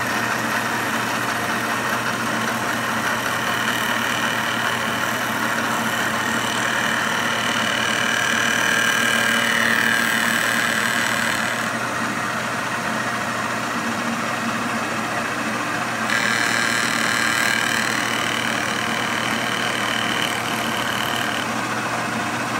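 Vertical milling machine running, its cutter facing down the warped base flange of a Tillotson carburetor. A steady motor hum under a high cutting whine that changes pitch about halfway through and again a few seconds later.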